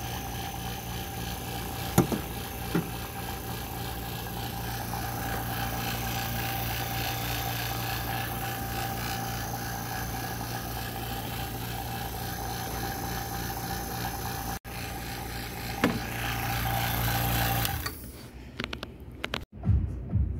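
AC vacuum pump running steadily, evacuating a car's air-conditioning system through the manifold gauge hoses before the refrigerant charge. Its steady hum stops about 18 seconds in, followed by a few knocks and handling noises.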